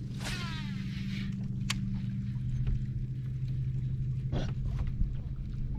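A steady low motor hum, with a few brief knocks on top.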